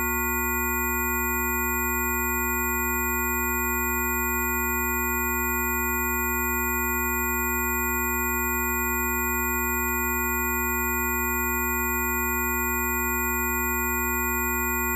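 Several steady electronic tones sounding together at fixed pitches over a low hum, unchanging throughout, with a faint tick about every second and a half.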